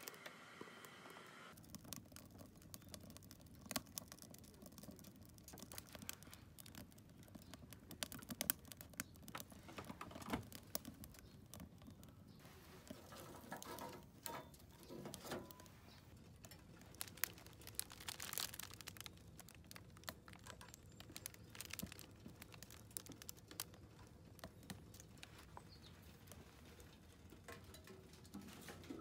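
Wood fire crackling in a camping wood stove, with irregular small pops and snaps.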